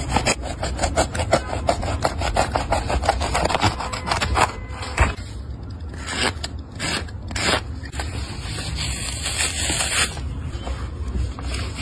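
Utility knife blade sawing through the glued seam between a sneaker's fabric upper and its foam midsole, in quick repeated scraping strokes that thin out about halfway through. Near the end a longer ripping hiss comes as the upper's glued fabric layers are pulled apart.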